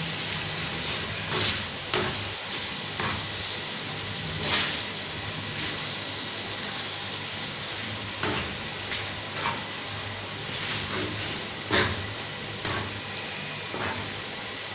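Chicken in a yogurt masala sizzling on a flat tawa griddle over low heat, a steady frying hiss. A spatula scrapes and knocks against the griddle every second or so as the pieces are turned, the sharpest stroke about twelve seconds in.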